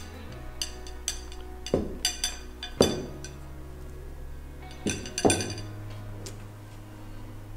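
Plates of cake set down on a wooden table, several clinks and knocks, the loudest about three seconds in, over background music with a light beat.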